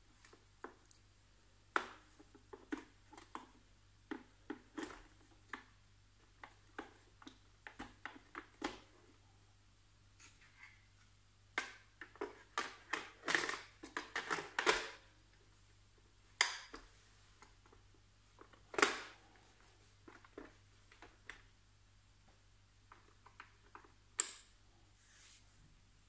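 Scattered light plastic clicks, knocks and rattles as the brush roll and its plastic cover are handled on the underside of a Vorwerk Kobold VR200 robot vacuum, with a denser run of clicks about halfway through and a few single sharp clicks later.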